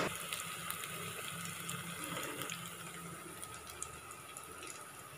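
Hot oil sizzling steadily as breadcrumbed soya cutlets deep-fry in a kadhai, with a few faint crackles.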